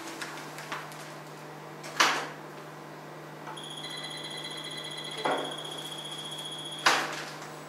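Angiography X-ray system's electronic warning tone: a steady high beep lasting about three and a half seconds, typical of the tone that sounds while X-rays are being fired. Sharp clicks come about two seconds in, once during the beep, and loudest as the beep cuts off, over a low steady hum of equipment.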